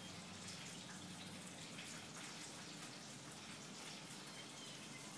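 Faint, steady outdoor background hiss with a few light ticks scattered through it.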